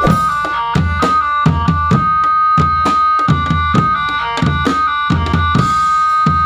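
Marching drum band playing a melody on sustained, reedy keyboard-like tones over a steady drum beat.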